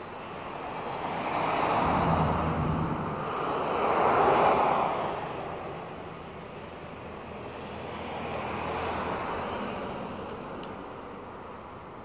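Road traffic going by: the noise swells and fades, loudest about four seconds in, with a smaller second swell near the end.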